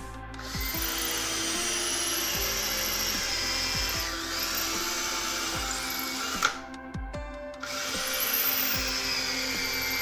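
Electric drill boring into a round piece of wood. It starts about half a second in, stops for about a second around six and a half seconds in, then runs again.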